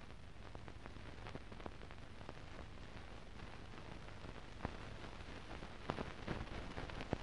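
Faint steady hiss with scattered clicks and crackles, a few louder ones near the end: the surface noise of an archive film transfer that has no soundtrack.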